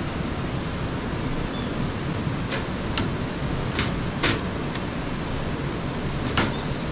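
Sharp clicks from a two-burner portable gas stove as its burner is being lit, about six of them at uneven intervals starting a couple of seconds in, over a steady rushing background noise.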